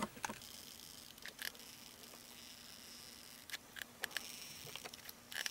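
Faint scattered clicks and taps of a hot glue gun being worked and a small cardboard piece being handled while glue is run along its edges, over a faint steady hum.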